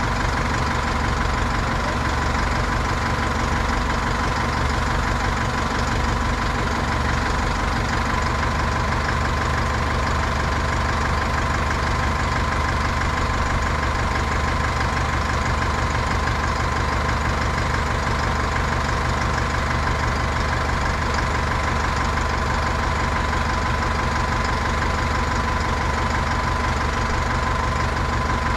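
Diesel wheel loader engine idling steadily, with a thin steady whine over the low rumble.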